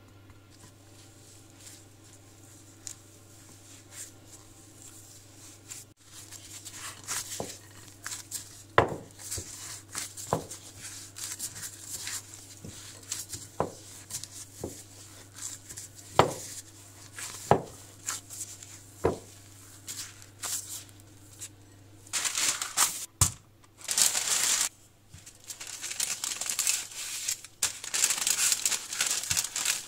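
A low steady hum, then from about six seconds in a plastic-gloved hand kneads marzipan dough in a glass bowl: the glove rustles and there are scattered sharp knocks. From about twenty-two seconds baking paper crinkles loudly as hands smooth it and roll a wooden rolling pin over it, the loudest part.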